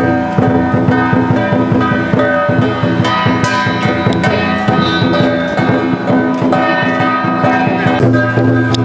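Ensemble music with fast, steady drumbeats under held melodic notes, as played at a temple ritual.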